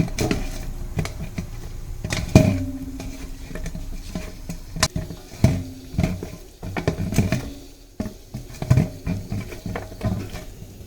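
Boiled chicken pieces being mixed by hand with salt and spices in a dish: irregular soft patter with clinks and knocks against the dish, one sharper knock a little over two seconds in.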